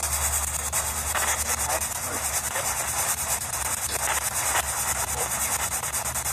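Steady high hiss over a low hum, with no clear voice in it.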